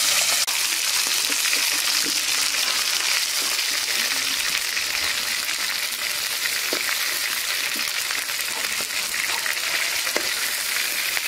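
Garfish pieces frying in hot oil in a wok: a steady sizzle with a few faint pops.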